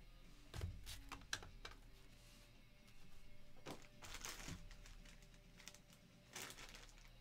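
Scattered light clicks and knocks of a clear plastic magnetic card holder being handled and stood in a wooden display stand, over faint background music.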